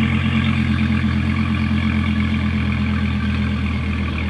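Dodge Viper SRT's 8.4-litre V10 idling steadily just after a cold start.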